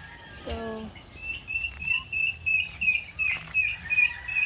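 Bird chirping: a rapid, even run of short, high chirps, about five a second, starting about a second in.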